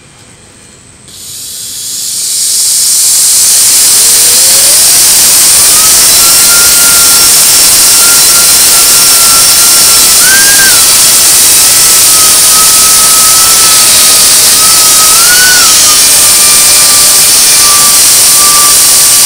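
Air-driven micro turbine starting up: compressed air hisses through it when the supply is opened about a second in, swelling over the next two seconds to a loud steady hiss. The turbine's whine rises in pitch as it spins up, then holds a steady high tone with two brief upward jumps in pitch, sagging slightly near the end.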